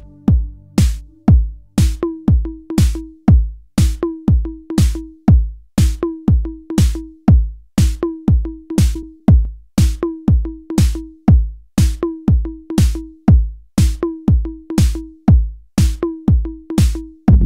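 A minimal techno beat from an electronic drum machine: a steady four-on-the-floor kick drum at about two beats a second. The sustained low synth chords fade out at the start, and about two seconds in a short mid-pitched synth note begins pulsing along with the kicks.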